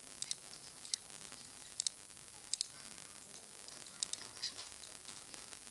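Computer mouse button clicking about six times, each a short sharp tick, most heard as a quick pair of press and release, over a steady background hiss.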